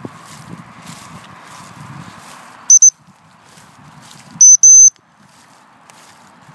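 Dog whistle blown sharply: two short pips near three seconds in, then two longer blasts about a second and a half later, a handler's signal to a German pointer working the field.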